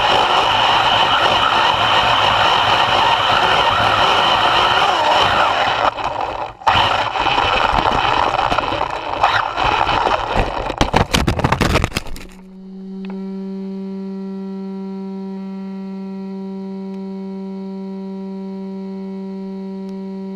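Onboard sound of an Arrma Typhon 6S RC buggy driving hard over a dirt hill and rough grass: the brushless motor's whine mixed with wind and rattling, with sharp knocks and clatter from about halfway in. About twelve seconds in the driving sound cuts off abruptly and a steady low hum takes over to the end.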